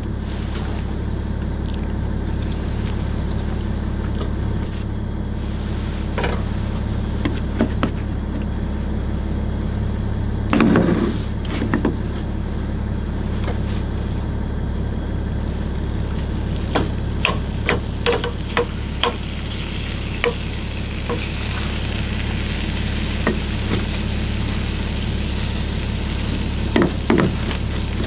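Meatballs in tomato sauce sizzling in a nonstick frying pan on a portable gas camp stove, with a wooden spoon scraping and tapping the pan now and then over a steady low hum. One louder thump about eleven seconds in; the sizzle grows louder in the last third as the pan heats up.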